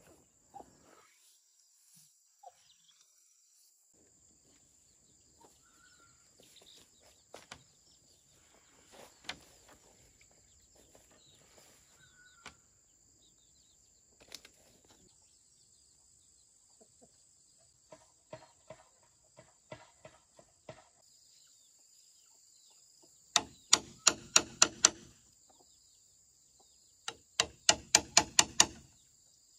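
Two quick runs of ringing hammer blows near the end, about five a second, like nails being driven into wood, after scattered lighter taps and knocks. A steady high insect buzz runs underneath.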